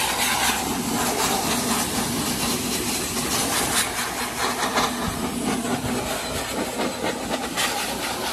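Forced-air dog dryer at a self-serve wash station, blowing a steady rush of air through its hose nozzle over a wet dog's coat.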